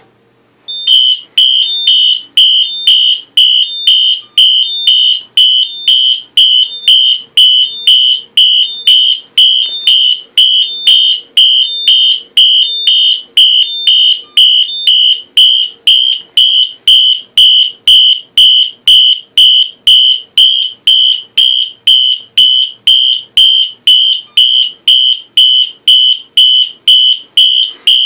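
Fire alarm horn sounding a loud, high-pitched pulsed alarm in a steady even beat, starting about a second in, set off by pulling the manual pull station.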